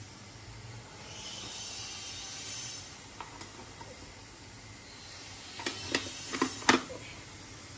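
A soft hiss lasting about two seconds, then four sharp clinks of steel kitchen utensils and pots in quick succession near the end.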